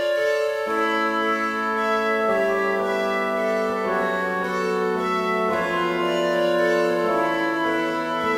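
Instrumental background music of long held notes, the chords changing about every second and a half.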